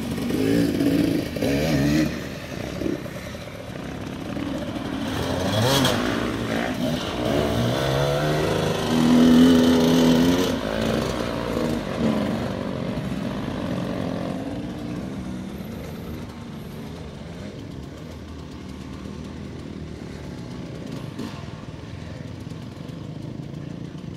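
Trail bike engine revving up and down in repeated bursts, loudest about ten seconds in, then easing off to a quieter, steadier running sound for the second half.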